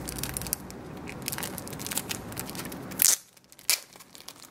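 Thin clear plastic wrapper crinkling and crackling as a phone battery is pulled out of it by hand, with the loudest crackle about three seconds in and another sharp one just after.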